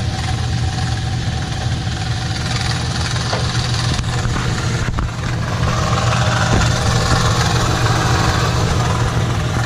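Ram 1500's 5.7 Hemi V8 idling steadily; the owner hears timing chain rattle in it and suspects a failing timing chain tensioner.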